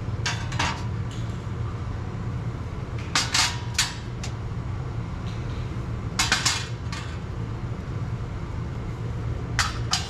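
Steel lathe tooling, quick-change tool-post holders and a live center, being set into a sheet-steel rack: short clusters of metal-on-metal clinks about every three seconds. A steady low hum runs underneath.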